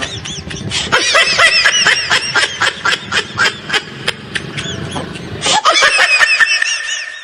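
High-pitched laughter sample repeated in quick rising-and-falling giggles with sharp clicks, stopping abruptly at the end.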